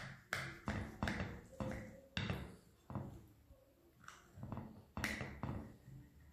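Knife sawing through the baked brisée crust of a vegetable savory tart with a sesame-seed rim, giving a series of short crunching strokes. The strokes come irregularly, roughly two a second, with louder ones about two seconds in and again about five seconds in.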